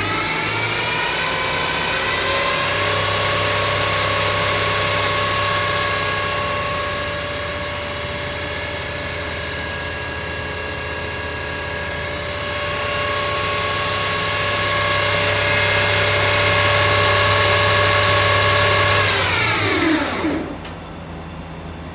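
Okuma Simulturn LU-400 CNC lathe spindle and chuck running with a whine. The whine rises in pitch over the first couple of seconds as the spindle speeds up, holds steady, then falls and stops about 20 seconds in as the spindle spins down.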